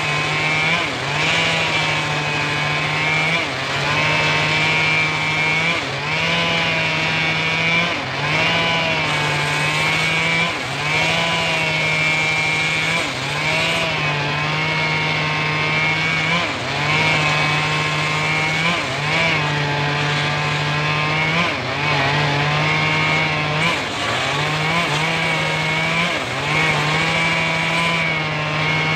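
Homemade engine-driven circular saw running continuously. Its pitch dips and recovers in a repeating cycle of about two seconds.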